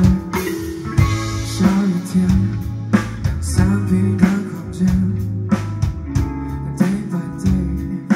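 Live band playing a song: electric guitars over a drum kit, with regular drum hits.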